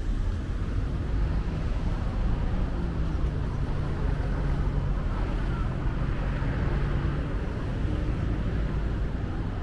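Steady low rumble of a motor vehicle's engine in street traffic, with a faint hum that drifts slightly in pitch through the middle.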